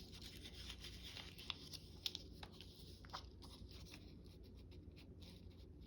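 Faint rustling of paper being handled, with a few light ticks and taps.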